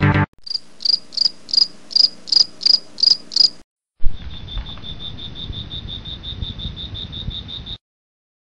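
Crickets chirping in two runs: first a slow series of high chirps, about three a second, then after a short break a faster, steadier series of chirps, about six a second, over a low rumble that opens with a loud bump.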